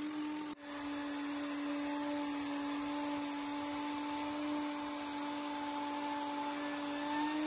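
Bosch plunge router on a flattening sled running steadily with a high whine while its bit surfaces a walnut and epoxy chessboard. The sound drops out for an instant about half a second in, then carries on at a slightly lower pitch.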